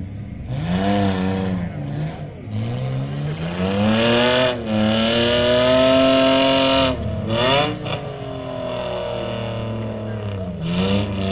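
Off-road vehicle's engine revving hard under throttle. The pitch climbs twice in the first half and is held high for a couple of seconds, then drops sharply. Short throttle blips follow near the end.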